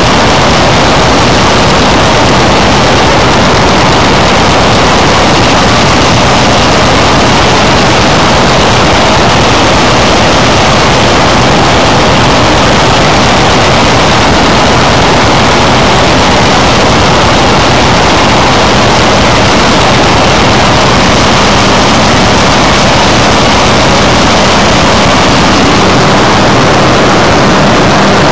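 Corn picker working through standing dry corn, its machinery and tractor engine running in a loud, steady mechanical din as it picks ear corn.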